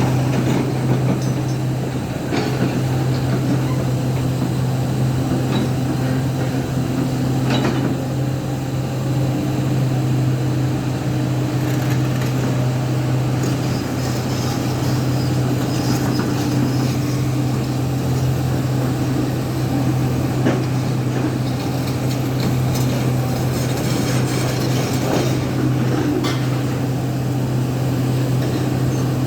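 Diesel engine of a JCB 3DX backhoe loader running steadily at work, a constant low drone with a few sharp knocks or clanks now and then.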